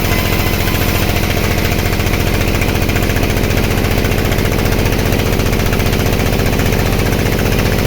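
Sawmill band saw running steadily and loudly, with a fast, even throb.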